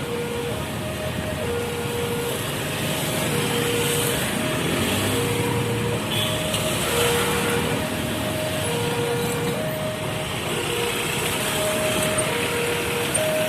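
Railway level-crossing warning siren sounding its two-tone alarm: a lower and a higher tone take turns, each held just under a second, in a steady repeating pattern. It warns that a train is coming and the barriers are closing. Road traffic noise runs underneath.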